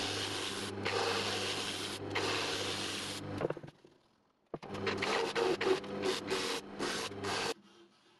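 Wood lathe motor humming as the bowl spins, with a rubbing hiss from abrasive held against the spinning end-grain wood. The lathe stops about three and a half seconds in, runs again with stop-start rubbing about a second later, and stops near the end.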